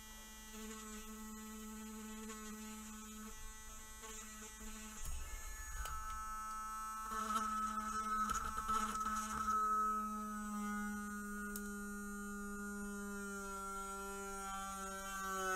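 A small USB electric mini hand drill running with a steady motor whine while drilling a tiny hole into the silver clicker top of a gel pen. The pitch drops slightly over the last few seconds.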